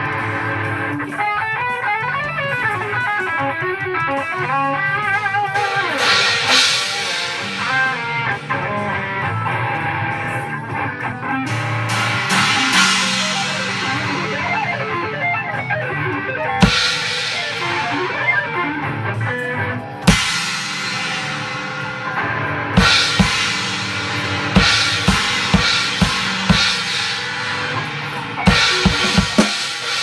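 Guitar playing in the background, then a 19-inch china cymbal crashed with drumsticks several times, each crash ringing out for a few seconds. Near the end, bass drum kicks and drum hits join the cymbal.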